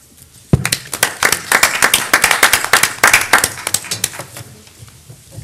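Applause from a small group of people. It starts about half a second in and dies away after about four seconds.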